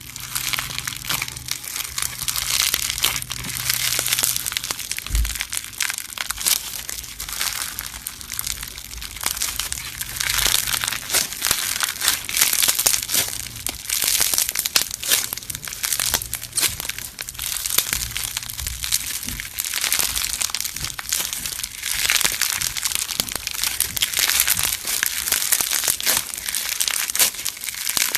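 Slime being squeezed and pressed by hand, giving dense, irregular crackling and crunching clicks.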